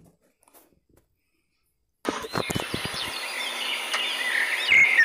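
Near silence for about two seconds, then a recorded birdsong sound effect starts playing: many birds chirping over a steady hiss.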